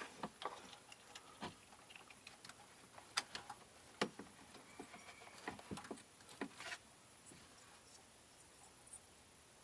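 Scattered light clicks and taps of small parts being handled, irregular and spaced out, stopping about seven seconds in.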